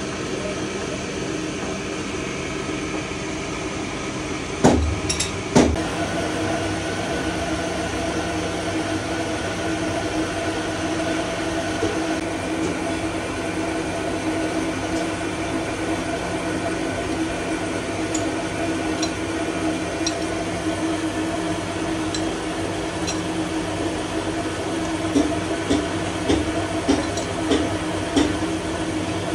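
Metal-turning lathe running with a steady hum and whine. There are two sharp knocks about five seconds in, and a run of light metal clinks near the end as the tool-post handle is worked.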